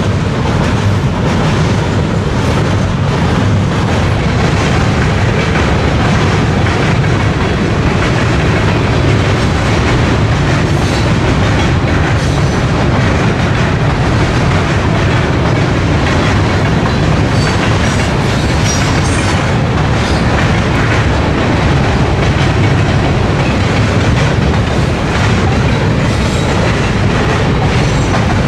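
CPKC freight train's cars rolling across a steel truss lift bridge: a steady, loud rumble of wheels with clickety-clack and scattered sharp clicks, busiest in the second half.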